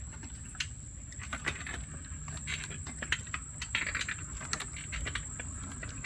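A bicycle rolling along a boardwalk path, a low rumble with irregular light clicks and rattles, under a faint steady high-pitched whine.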